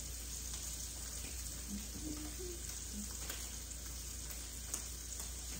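Beefalo steaks sizzling in a hot skillet: a steady frying hiss, with a few faint ticks near the end.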